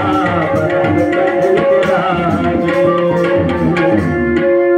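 A live Hindi Ramayan bhajan: a man singing into a microphone, accompanied by tabla and steady held notes underneath. The tabla strokes drop away near the end.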